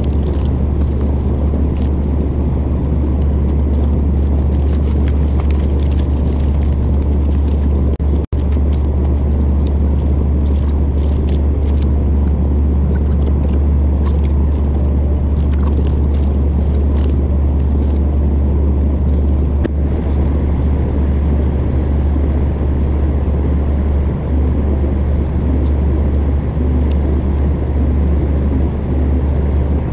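Truck driving at highway speed: a steady low drone of engine and road noise, unchanging, with a brief cut-out about eight seconds in.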